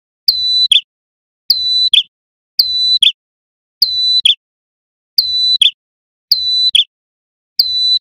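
Male prenjak kepala merah, a small prinia-like songbird, calling over and over: seven loud calls a little over a second apart, each a high held note ending in a short sharp falling note.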